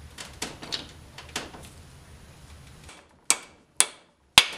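A few light metal clicks as the differential's pinion shaft is set in place by hand, then three sharp hammer blows, the last one loudest, driving the shaft into the limited-slip differential carrier.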